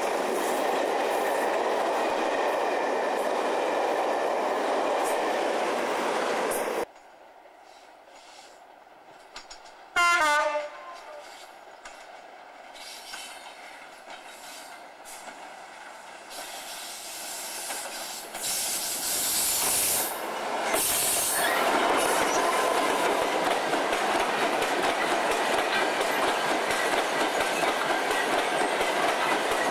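Coaches of a loco-hauled passenger train rushing past at speed until an abrupt cut about seven seconds in. Then a Class 66 diesel locomotive on an empty coal hopper (MGR) train gives a short horn blast that falls in pitch, and the train's sound builds as it approaches. From about twenty seconds in its empty hopper wagons roll past close by with a steady clatter of wheels on rail joints.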